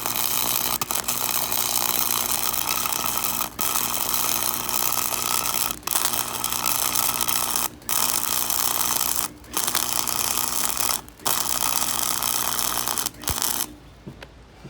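Cheap MIG welder running a bead on 1/8-inch steel: a continuous crackling sizzle over a steady hum, broken by about six brief pauses in the arc, stopping about a second before the end.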